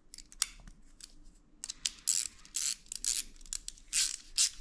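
Ratchet tool with a 6 mm hex bit clicking as a bicycle power-meter pedal's end cap is screwed down, starting about a second and a half in as a run of short ratcheting bursts, two to three a second, after a few faint ticks of handling.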